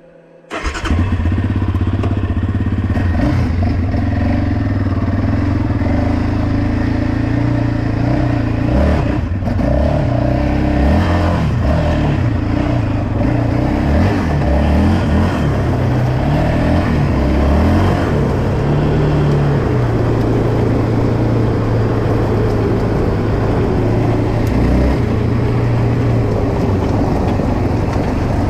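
Yamaha Raptor 700R SE ATV's single-cylinder four-stroke engine running under way, its pitch rising and falling with the throttle. The engine comes in suddenly about half a second in.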